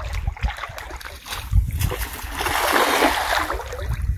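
A cast net is thrown out and its weighted rim and mesh hit the water with a spraying splash that lasts about a second, about halfway through.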